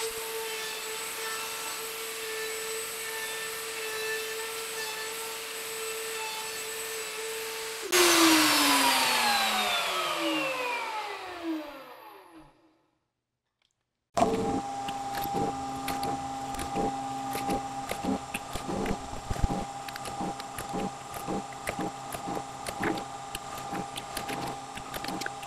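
A table-mounted router runs steadily while an acrylic pickguard is fed past the bit, then is switched off about eight seconds in, its pitch falling as it spins down. After a short gap a drill press runs with irregular clicking as it bores into an acrylic pickguard.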